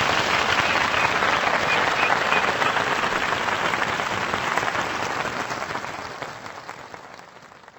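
Crowd applauding, with dense clapping that fades out over the last few seconds.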